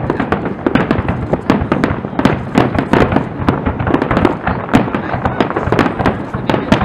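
Aerial firework shells bursting in a dense, unbroken barrage, several sharp bangs and crackles a second, overlapping one another.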